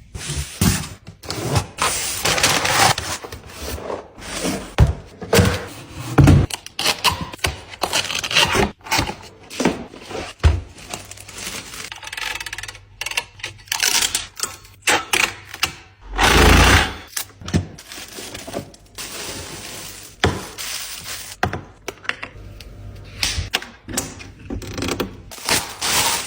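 A coffee machine being unboxed: packaging rustling and scraping, with many irregular knocks and thunks as the box and parts are handled, and one heavier low thump about two-thirds of the way through.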